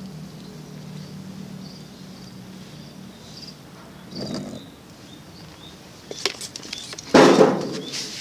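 Hand trigger sprayer squirting, with a short spray burst about four seconds in and a louder, longer burst near the end. A low steady hum fades out early on, and faint high chirps sound in the background.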